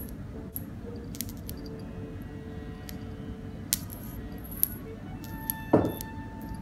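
Light clicks and jingles from a cat toy on a cord tapping and dragging on a tile floor, with one louder knock near the end that rings briefly.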